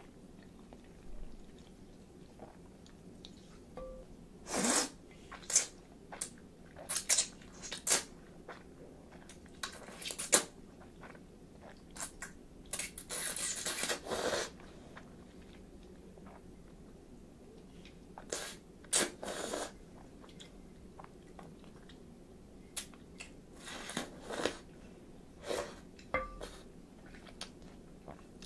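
Close-up eating sounds of chilled ramen: a long slurp of noodles about halfway through, with scattered chewing and smacking of lips before and after.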